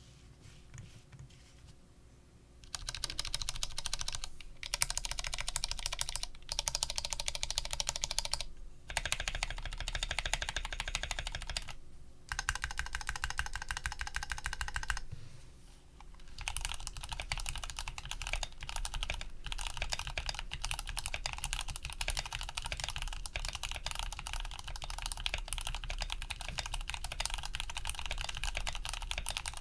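Fast typing on an Archon DX V2 custom mechanical keyboard with lubed Cherry MX Brown switches (with TX films) on an aluminium plate and GMK keycaps: a dense run of key clacks. It starts a few seconds in, comes in bursts with brief pauses, then runs on without a break through the second half.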